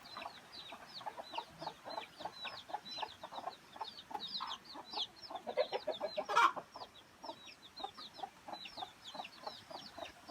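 A flock of chickens clucking, with many short, high, falling calls in quick succession and one louder call about six seconds in.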